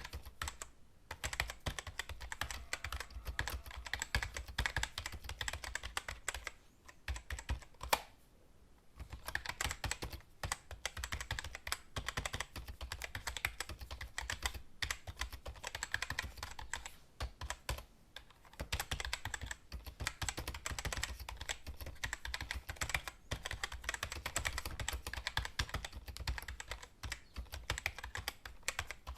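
Typing on a computer keyboard: rapid, continuous keystroke clicks in runs, with a few short pauses and one sharper, louder key click about eight seconds in.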